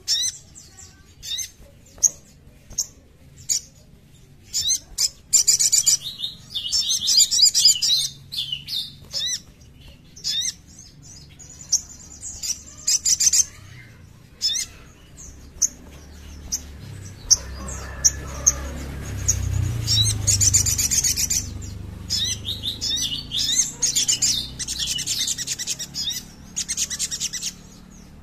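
Olive-backed sunbird (sogon) singing: runs of high, fast twittering trills and sharp chirps, with a low rumble in the background for a few seconds in the middle.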